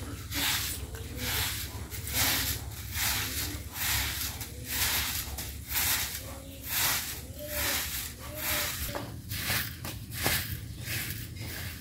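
A short-handled stick broom sweeping bare packed-earth ground in quick, regular scratchy strokes, roughly three strokes every two seconds.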